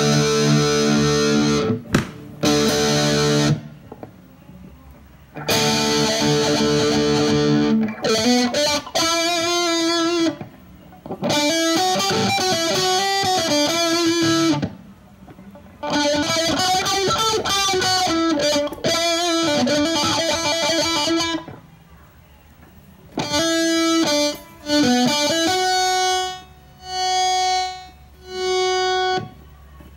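Electric guitar played through a NUX MFX-10 modeling processor on a distorted hard-rock preset. Heavy chords come first, then single-note phrases with notes bending up and down, and near the end the same note is held three times.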